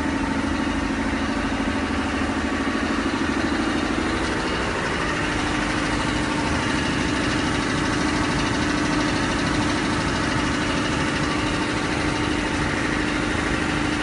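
A machine running steadily nearby: a constant mid-pitched hum over an even mechanical rumble and hiss, with no change in speed.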